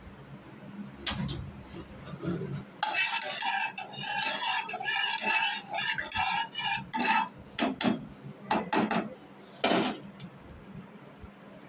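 A spoon stirring and scraping mustard seeds and urad dal around a non-stick pan of hot oil while they temper, with a dense rasping scrape for about four seconds. Then come several sharp taps and clinks against the pan, the loudest near the end.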